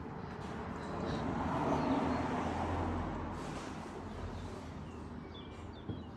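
A vehicle passing by, its noise swelling to a peak about two seconds in and then slowly fading away. A few bird chirps come near the end.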